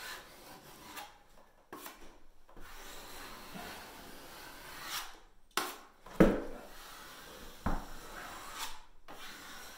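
Flexible spatula blade scraping along a plasterboard joint in repeated strokes, pressing the joint tape down into the fresh joint compound. A single sharp knock about six seconds in is the loudest sound, with a smaller one shortly after.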